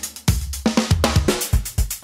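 Background music with a steady drum-kit beat of bass drum, snare and cymbals; about a second and a half in the bass drum quickens to about four kicks a second.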